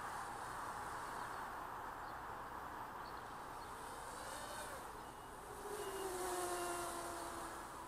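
FPV racing quadcopter's brushless motors and 5-inch propellers running in flight, a steady whirring that glides up and down in pitch about four seconds in, then a louder tone that slowly drops in pitch near the end as the throttle changes.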